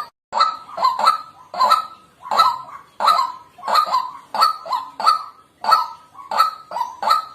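White-breasted waterhen calling in a long unbroken series of loud, harsh 'kwak' notes, about two a second.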